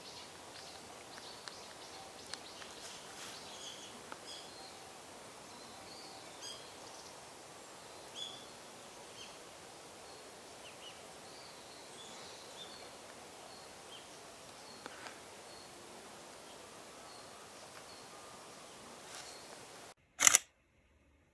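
Woodland ambience with small birds giving short, high chirps here and there. Near the end the background cuts off suddenly and a single sharp, loud click follows.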